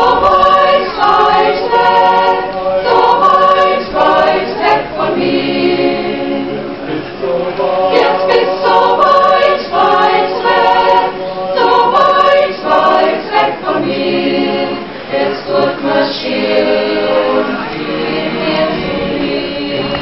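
A mixed choir of women's and men's voices singing a song in several parts, in phrases with brief breaths between them.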